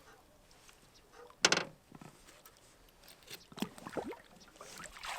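A released blue catfish going back into the water: one sudden loud splash about a second and a half in, followed by scattered smaller splashes and knocks.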